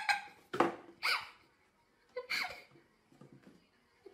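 A person laughing in short, gasping bursts, fading by the end.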